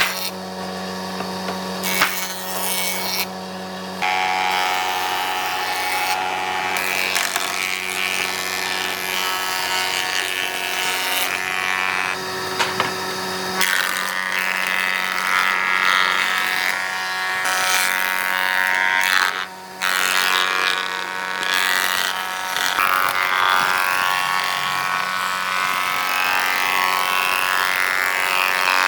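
An electric power tool with a steady motor hum, cutting or grinding wood with a rough rasping noise over the hum. The sound changes abruptly a few times and drops out briefly past the middle.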